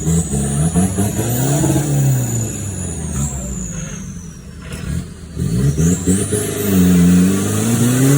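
Off-road 4x4's engine revving up and easing off twice, with a high whistle sweeping up and down alongside.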